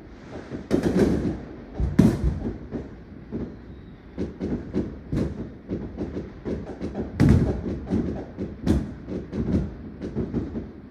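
Aerial fireworks exploding in an irregular, rapid string of bangs and booms. The loudest come about two seconds in and again near seven and nine seconds.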